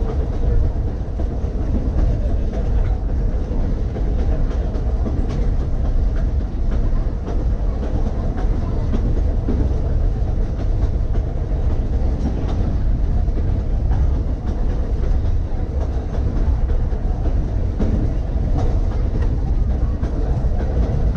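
Key System 187 electric railcar running along the track: a steady rumble of wheels on rail, with occasional light clicks from the rail joints.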